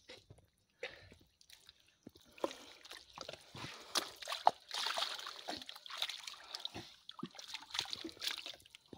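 Irregular splashing and sloshing in a shallow muddy pool where a large fish is trapped. It starts about two seconds in after a few faint clicks and is busiest around the middle.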